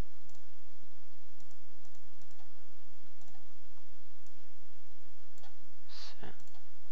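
A few faint computer mouse clicks over a steady microphone hum and hiss, with a brief louder sound about six seconds in.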